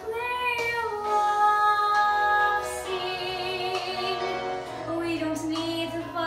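A girl singing a melody solo, holding long notes.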